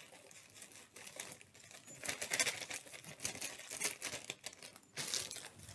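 Clear plastic zip-top bag crinkling as it is handled and shaken out, with loose potting soil falling from it into the dish. The rustling is loudest about two seconds in and again near the end.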